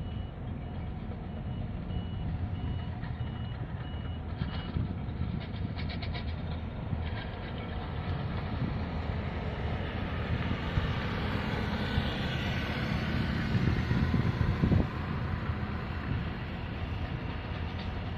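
A motor scooter passes close by around the middle, its engine noise rising and then falling. Under it runs a low, steady rumble, and a high beep repeats over and over for the first few seconds.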